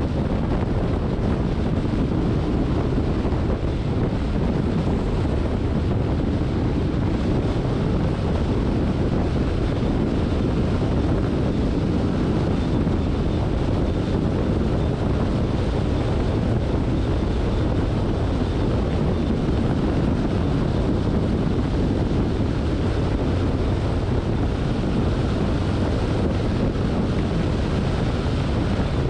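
Steady road and wind noise from a car driving in the rain, an even rumbling hiss with no distinct events.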